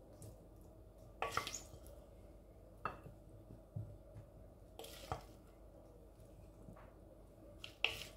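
Wooden spoon tossing salad in a ceramic serving dish: a handful of short scrapes and knocks of wood against the dish, a second or two apart, the loudest near the end.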